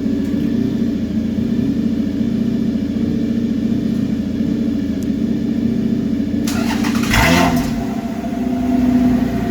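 Toyota 2GR-FE 3.5-litre V6 running steadily through its new exhaust. It revs briefly about seven seconds in, and its pitch rises and gets louder again near the end.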